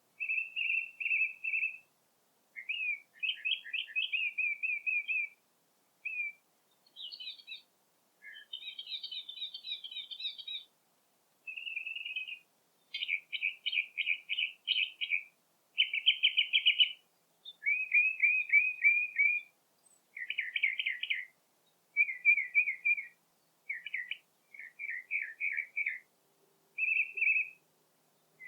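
A songbird singing a string of short phrases, each a quick run of repeated chirping notes, with brief pauses between phrases and a clean, quiet background.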